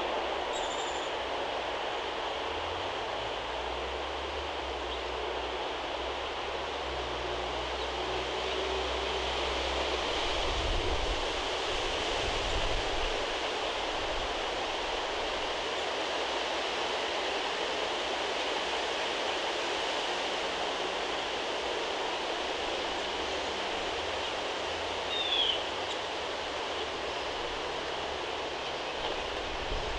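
Steady outdoor background noise with a low rumble like distant traffic, broken by a short bird chirp about a second in and a brief falling bird chirp about 25 seconds in.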